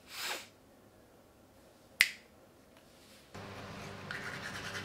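A single sharp finger snap about two seconds in, after a short breathy rush at the start. From just past three seconds a steady low hum sets in, and near the end a toothbrush scrubs on teeth with quick scratchy strokes.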